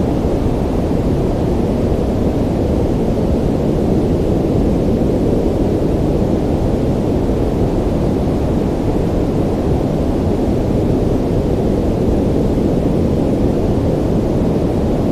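Ocean surf ambience: a steady, low rumbling roar of water with no distinct wave breaks or swells.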